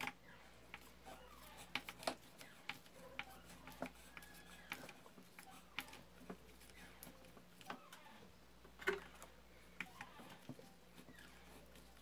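Faint, scattered clicks and short scrapes of a small screwdriver turning a screw into the plastic neck joint of a Britânia electric fan, tightening it up. The loudest click comes about nine seconds in.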